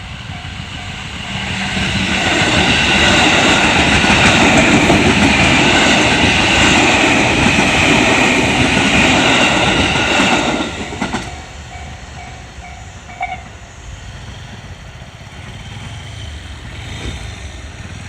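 A JR West 207 series commuter train passes over a Japanese railway level crossing, loud for about nine seconds with wheels clattering over the rail joints. The crossing's electronic warning bell rings a steady, quickly repeated kan-kan chime before and after the train, and stops about thirteen seconds in as the crossing clears.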